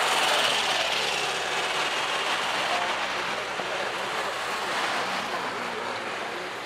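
Classic cars driving past slowly up a hill road, engines running, over a steady rushing noise that fades slightly towards the end.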